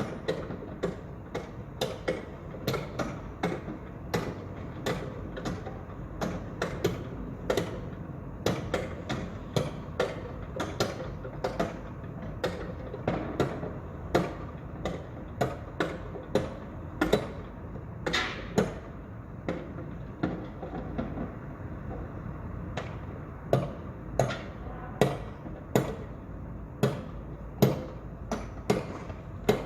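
Construction site ambience: sharp knocks and taps, irregular, about two a second, over a steady low rumble.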